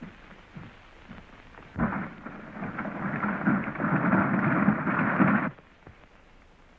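A horse-drawn stagecoach and its galloping team: a dense rumbling clatter of hooves and wheels. It comes in about two seconds in, grows louder and cuts off abruptly about three and a half seconds later.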